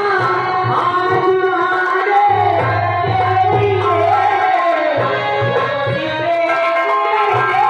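Live folk-theatre song: a voice singing a wavering melody over a hand drum beating a steady rhythm, with held tones beneath.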